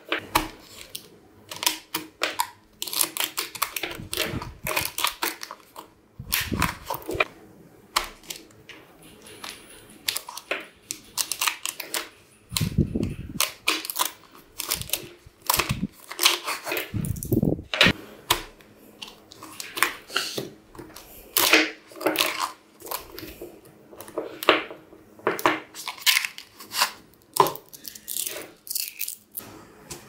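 Small magnetic balls clicking and clattering in irregular runs as strands of them are snapped together and pressed around a paper tube by hand. A few dull thumps come from the handling.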